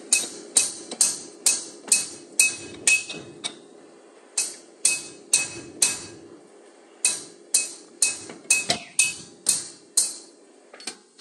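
Repeated sharp metal-on-metal strikes on a steel brake-shoe clamping jig, about two a second, each with a short ringing tone. They come in three runs of four to eight blows with brief pauses between.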